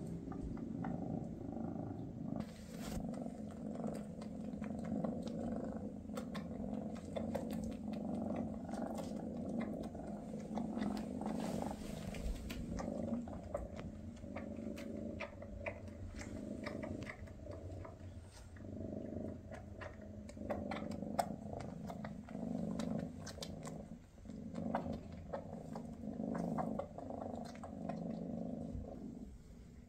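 Maine Coon cats purring steadily and close up, a continuous low rumble that swells and eases, with small clicks and rustles of fur and paws.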